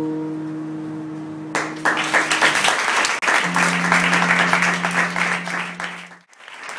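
The last held chord of a live band's song rings out and fades, while audience applause breaks out about a second and a half in. A low steady tone is held under the clapping. The applause drops out briefly near the end and then comes back.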